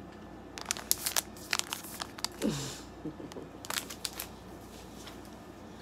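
Plastic snack wrapper crinkling and tearing as it is pulled open by hand: a run of sharp crackles that thin out after about four seconds.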